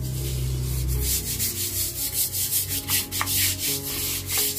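Scrub brush scrubbing the concrete wall and floor of an empty fish pond in quick back-and-forth strokes, several a second.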